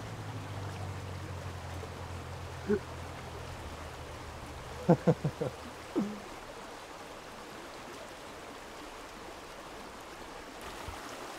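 Small mountain stream flowing steadily over rocks. About five seconds in, a few brief, louder sounds from a voice break in.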